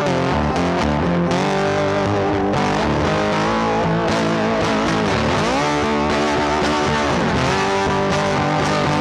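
Background music led by electric guitar, with notes that bend up and down in pitch.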